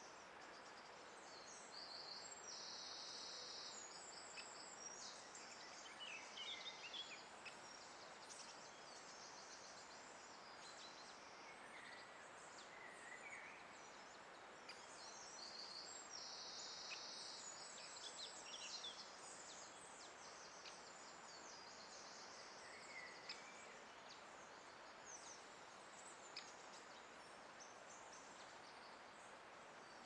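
Faint birdsong over a steady hiss of background noise: several songbirds calling and singing in short high phrases, with a dense, high trill of about a second heard twice.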